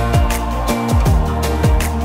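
Background music with a steady beat of deep kick drums and bass.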